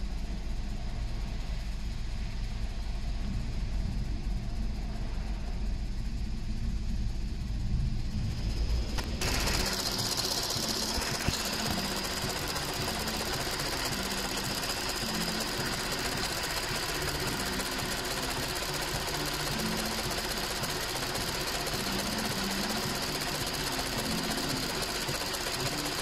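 Volkswagen 1.4 TSI twin-charged four-cylinder petrol engine idling with a steady clattering rattle from the failing water pump and supercharger clutch assembly. For the first nine seconds it is heard muffled from inside the cabin; then it is heard close up under the bonnet, louder, brighter and rhythmic.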